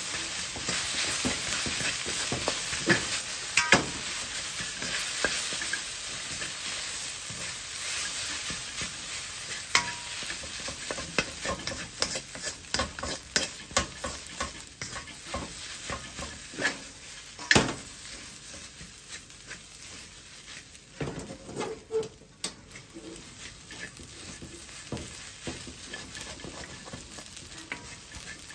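Egg fried rice sizzling in a wok while a wooden spatula stirs and scrapes it, with frequent sharp knocks of the spatula against the pan. The sizzle grows quieter in the second half.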